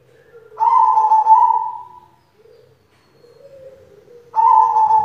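White zebra dove (perkutut) cooing: two loud calls, one about half a second in and one near the end, each trailing off over about a second, with softer low coos between them.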